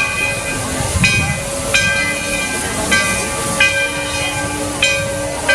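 Steam locomotive's bell ringing steadily, about a stroke a second in swinging pairs, over the hiss of steam.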